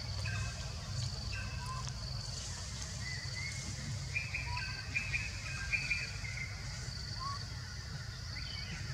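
Forest birds calling: one short high note repeated about once a second, with scattered chirps that bunch together in the middle, over a steady low rumble.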